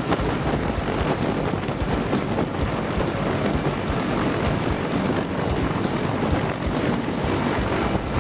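Sikorsky CH-53 heavy-lift helicopter flying, its rotor and turbine noise steady throughout.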